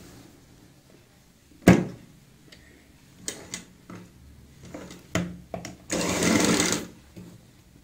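Black domestic sewing machine handled and then run: a sharp knock about two seconds in and a few lighter clicks as the fabric is set under the presser foot, then a short run of stitching lasting about a second, six seconds in, sewing cord piping onto a neckline.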